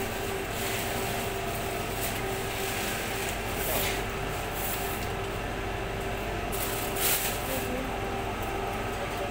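Steady mechanical hum with a constant low tone, and brief hissing scrapes about four and seven seconds in.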